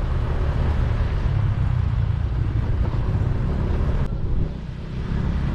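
Motorcycle engine running steadily while riding, with wind buffeting the helmet or body-mounted microphone; the engine sound eases briefly about four seconds in.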